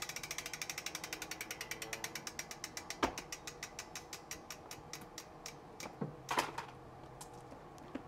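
DT Swiss M1700 rear wheel's freehub ratchet clicking as the free-spinning wheel coasts to a stop. The clicks come slower and fainter until they die out, with a couple of light knocks in between.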